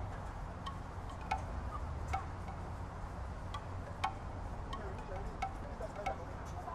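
Urban outdoor ambience: a steady low rumble under sharp, irregular clinks that ring briefly, about two a second.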